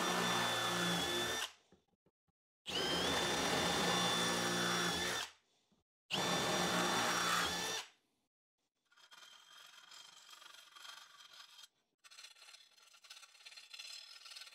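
Cordless drill with a 5/16-inch bit enlarging the bolt holes in a metal inverter mount plate, run three times for about two seconds each with a steady motor whine. After that comes a fainter scraping as a hand deburring tool cleans the edge of a drilled hole, with a brief pause partway through.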